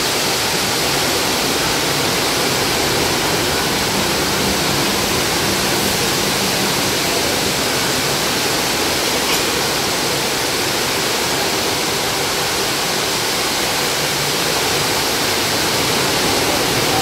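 Water vortex fountain: a spiralling column of water pours down from a ceiling bowl and splashes into the pool below. It makes a steady, loud rush of falling water.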